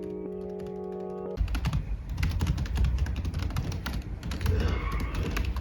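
Soft background music of held notes stops suddenly about a second and a half in. Rapid typing on a computer keyboard follows, a dense run of irregular key clicks.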